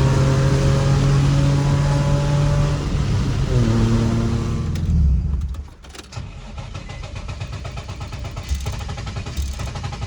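Nissan 350Z's 3.5-litre V6 held at a steady raised rev, easing off about 3 s in and revving up again, then dropping back to a lower, pulsing idle about five and a half seconds in.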